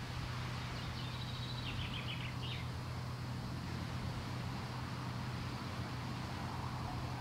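A short run of bird chirps from about one to two and a half seconds in, over a steady low hum and hiss that runs on throughout.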